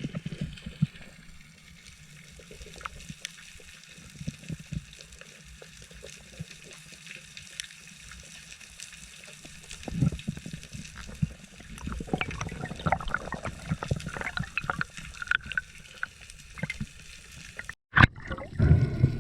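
Water sloshing and gurgling with a scatter of crackling clicks, busier in the second half. The sound breaks off for a moment near the end, then comes back with a louder burst.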